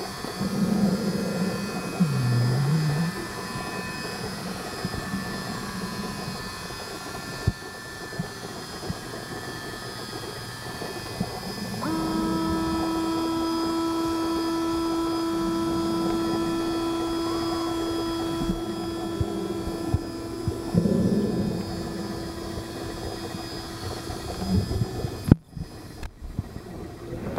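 Electric drive of a 1/72-scale radio-controlled Kilo-class model submarine running, heard underwater as a muffled, steady mechanical whine. About twelve seconds in, a stronger steady hum sets in and holds until near the end, when the sound breaks up into uneven bumps and dropouts.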